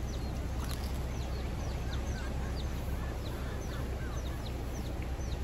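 Birds chirping: many short, falling high chirps repeating several times a second, over a steady low rumble.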